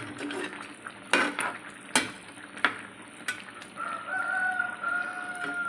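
Utensil stirring pieces of chicken through thick simmering spiced sauce in a frying pan, with a few sharp knocks of the utensil against the pan over a steady low sizzle. Near the end a steady high-pitched tone holds for about two seconds.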